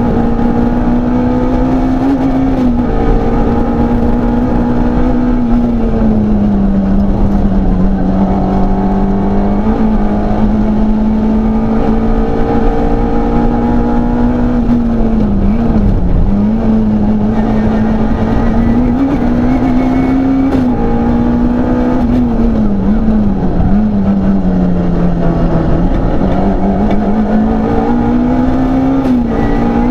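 Peugeot 106 Rallye's four-cylinder engine driven hard, heard from inside the cabin: a loud, steady engine note whose pitch rises and falls with the throttle, dipping briefly at each gear change, about five times.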